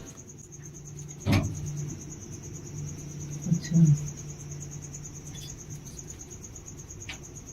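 Crickets chirring steadily in a high, even trill, over a low hum. A sharp knock comes about a second in, and a couple of softer thumps follow a few seconds later.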